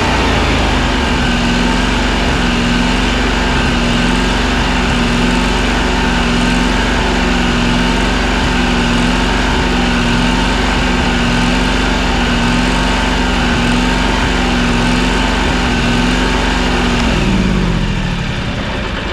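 Toro Z587L zero-turn mower's liquid-cooled engine running at a steady speed while it warms up to operating temperature. Near the end the engine slows down, falling in pitch and getting quieter.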